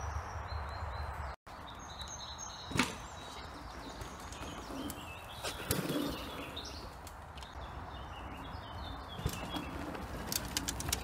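Songbirds chirping faintly in the woods over a low steady wind rumble on the phone's microphone, with a sharp click about three seconds in and a dull knock about six seconds in.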